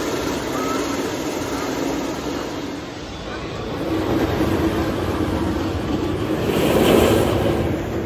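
Wildcat's Revenge roller coaster train rumbling along its hybrid wood-steel track, swelling to its loudest about seven seconds in as it passes close.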